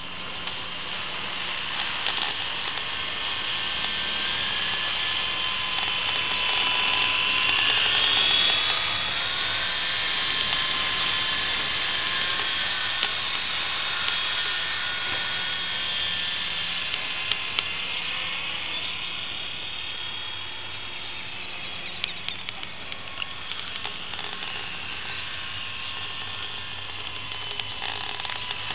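WL Toys V912 RC helicopter's electric motor and rotors whining in flight, the pitch gliding up and down as the throttle changes, loudest about eight seconds in.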